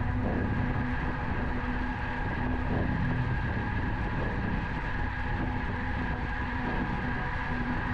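Steady rumble of wind and road noise from a moving road bicycle on tarmac, with a faint steady hum under it.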